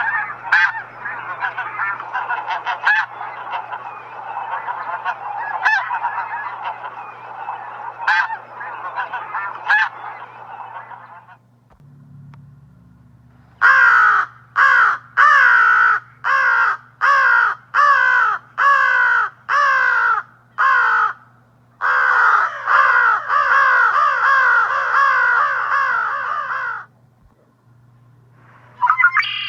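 Geese honking: a continuous gabbling clamour for about eleven seconds, then after a short pause a series of loud, separate honks about two a second that runs into a rapid unbroken stream of honks.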